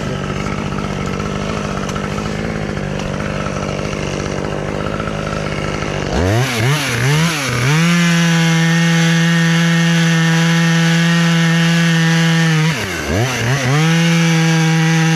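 Chainsaw engine running steadily, then blipped up and down a few times about six seconds in and held at high revs; the revs drop briefly near the end and come straight back up.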